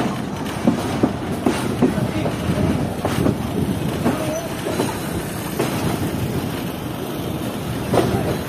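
Freight train running onto a station loop line, heard from its guard van: wheels clattering over rail joints and points, with sharp knocks about every half second to a second over a steady rumble.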